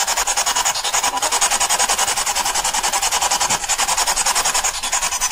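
Spirit box (ghost box) sweeping through radio frequencies: a fast, even chatter of static pulses, many per second.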